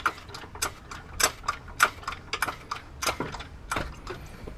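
A jack being worked to lift the rear suspension slightly so the shock's bolt hole lines up: an uneven run of sharp metallic clicks, a few a second.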